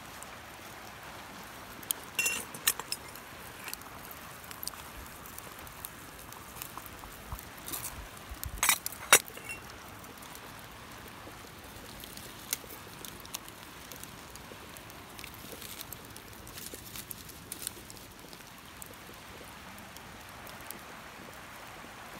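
Wood campfire burning: scattered sharp crackles and pops over a steady hiss, with the loudest clusters of pops about two and about nine seconds in.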